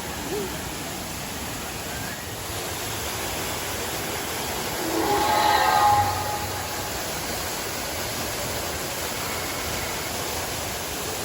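Steady rushing noise, with a brief indistinct voice about five seconds in.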